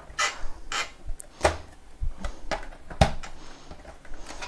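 Plastic side panel of a Samsung ML-3312ND laser printer being worked off by hand: a string of short clicks and knocks as its snap tabs are pried loose, the loudest about three seconds in.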